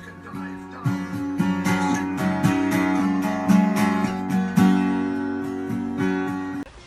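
Background music with a strummed acoustic guitar, in regular strokes; it cuts off abruptly near the end.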